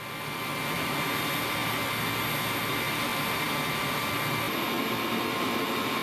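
Steady machine whir with a few thin high whining tones, fading in over the first second.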